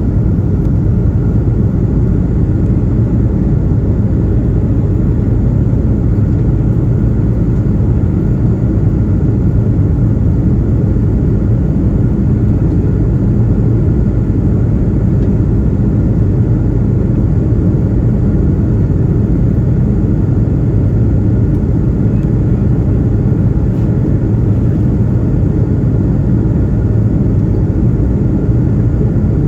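Steady, loud cabin rumble inside an Airbus A330-200 airliner: its jet engines and the airflow around the fuselage, heard from a window seat.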